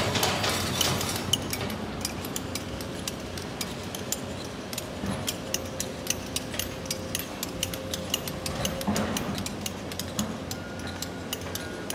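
Excavators working a rock pit, loading dump trucks: a steady engine tone under a rapid, irregular clatter of sharp clinks, rock knocking on steel.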